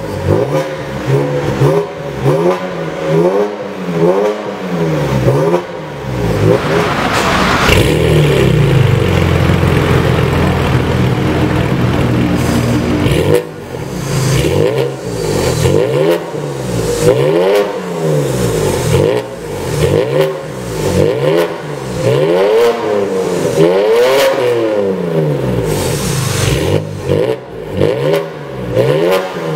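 BMW Z4 engine revved through an aftermarket performance exhaust. Short blips climb and fall every second or two, with a longer hold at high revs from about eight to thirteen seconds in.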